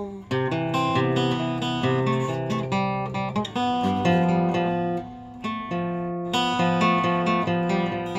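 Acoustic guitar strumming chords in an instrumental passage of a song, with no singing; it drops briefly quieter about five seconds in.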